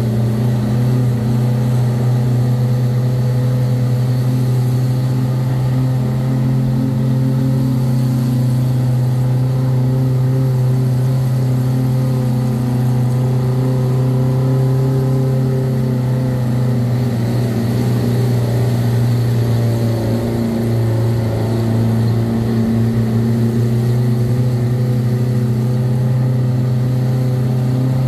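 Jeep engine roaring at a steady pitch under heavy load, climbing a steep, rough road of more than 30 degrees.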